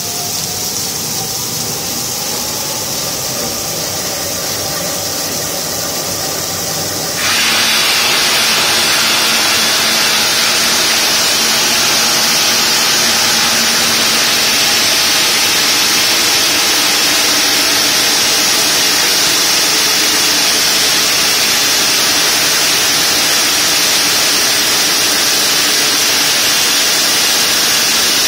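Multiblade block cutter's large diamond-segment circular saw blade running through a granite block under water-cooling spray: a steady grinding hiss with motor noise. About seven seconds in, the sound steps up suddenly and becomes louder and hissier, then holds steady.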